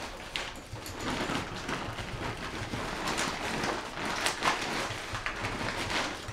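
Crinkling and rustling of a lightweight Dyneema waterproof food bag and the food packages inside it as the bag is squeezed down by hand, with a steady run of small crackles.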